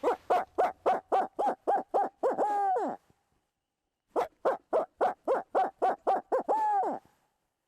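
Owl hooting: two series of about eight evenly spaced hoots, each ending in a drawn-out note that falls in pitch.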